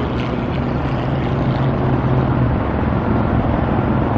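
Steady road traffic noise of cars passing, with a low engine hum for the first couple of seconds.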